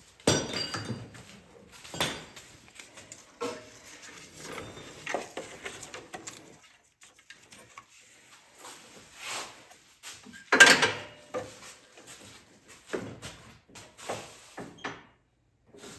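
Hand tools and metal parts clanking and knocking irregularly, with one louder clank about eleven seconds in.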